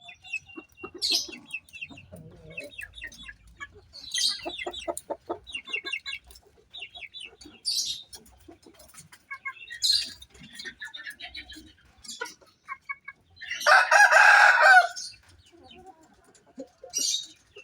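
Bangkok gamecock roosters clucking and calling in short repeated bursts, with one loud crow of about a second and a half some 14 seconds in.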